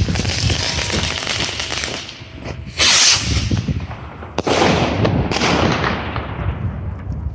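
Jorge Tornado firework rockets going off: several sharp cracks, each followed by a rushing hiss that fades away. The loudest, brightest burst comes about three seconds in.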